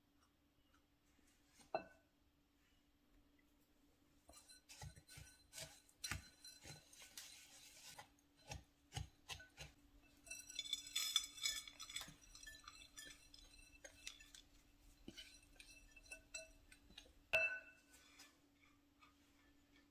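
Glassware clinking and scraping as a cookie-crumb pie crust is mixed in a glass bowl and pressed into a glass pie plate. There are scattered light clicks and scrapes, a busier run of bright ringing clinks about ten seconds in, and one more ringing clink near the end.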